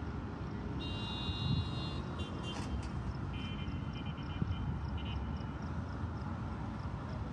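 Outdoor ambience from a handheld phone recording: a steady low rumble, with high steady tones that sound for about a second early in the clip and again for about two seconds in the middle, and faint short ticks repeating about three times a second.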